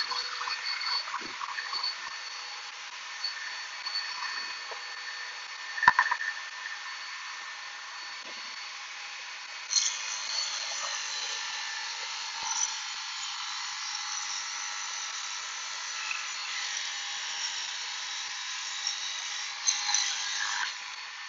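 Shopsmith Mark V running a high-speed steel Magna Dado wobble dado blade, with a sharp knock about six seconds in as the board is set on the table. About ten seconds in the blade bites into the board and runs loaded for about ten seconds, cutting a groove with the grain, before easing off near the end.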